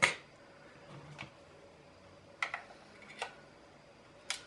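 A few light, separate clicks and taps, about four across the few seconds, as the plastic housing of an automatic soap dispenser is picked up and handled.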